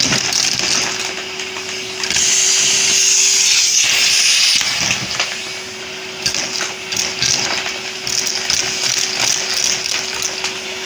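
Henry vacuum cleaner running steadily, sucking up Lego bricks that clatter and click up the hose. Its rushing air grows louder about two seconds in and eases back a couple of seconds later.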